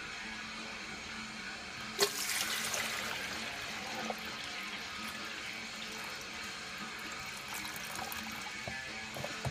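Water poured into the reservoir of a Sunbeam drip coffee maker: a sharp knock about two seconds in, then a steady pour.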